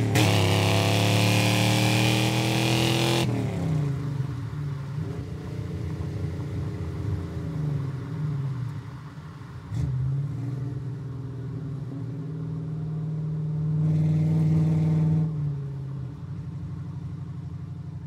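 Vintage Ford Mustang V8 engine revving, rising in pitch for about three seconds, then dropping back suddenly. It runs at a low speed with a few short throttle blips, revs up and holds a little past three quarters of the way, then settles into a steady idle.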